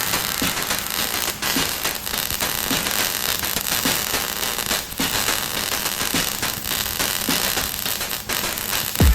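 Electric arc welding: a steady crackle and hiss full of small sharp pops.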